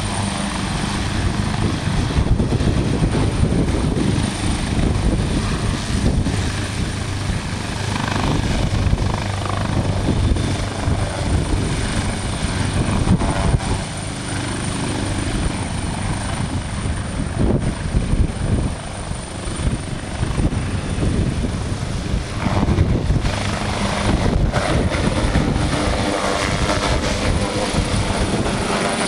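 Maryland State Police AgustaWestland AW139 twin-turbine helicopter lifting off and climbing away. Its rotor and engine noise stays loud and steady, with a thin high whine running through it.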